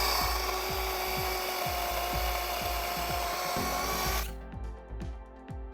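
DeWalt 20-volt cordless battery chainsaw running at full speed with a steady electric whine, cutting off abruptly about four seconds in. Background music with a steady beat plays underneath.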